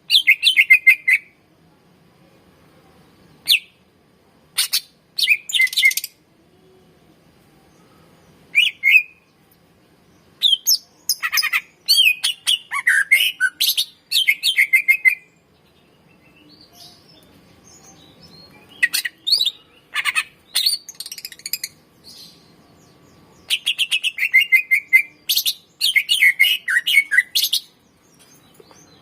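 A cucak ijo (green leafbird) singing in bursts of rapid, quickly changing chirps and slurred whistles, with phrases of one to several seconds broken by short pauses; the longest run of song is from about 10 to 15 seconds in.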